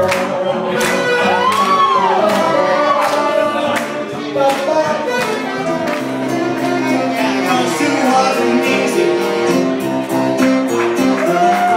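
Live band music: a saxophone playing a melody with bent notes over electric keyboards, with a steady beat.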